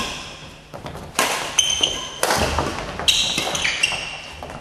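Doubles rally in a sports hall: sharp racket strikes and thuds come every half second to a second, echoing in the large room, with short high squeaks of shoes on the court floor.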